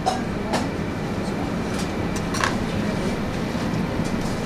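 Steady rushing kitchen background noise with a low hum, and a few faint clicks as a paring knife carves a raw root vegetable.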